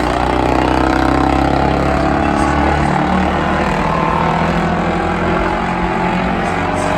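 Several race car engines running hard together, their pitches overlapping and shifting slightly as the cars lap the track.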